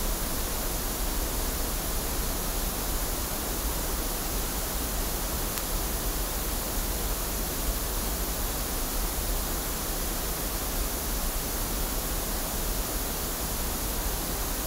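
Steady pink noise test signal played from a loudspeaker, unchanging hiss across the whole range.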